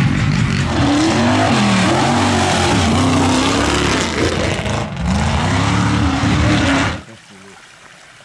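Off-road truck engine running hard and revving up and down several times, with tyre and mud noise under it. It cuts off suddenly about seven seconds in.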